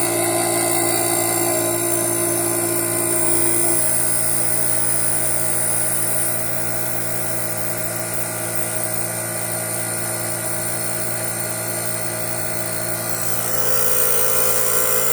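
Desktop computer's cooling fans running with a steady whine of several tones, one fan just oiled with 10W30 motor oil to quiet it. The sound eases slightly about six seconds in and swells again near the end.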